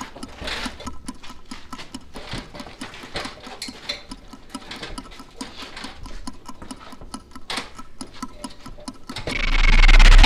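Steady clock-like ticking, a tension-building effect in the film's soundtrack. About a second before the end, a loud deep boom swells up over it.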